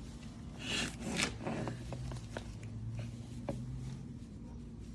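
Handling noise of an oscillating multi-tool's quick-change blade clamp being rotated: rustling scrapes in the first second or so, then a series of light sharp clicks.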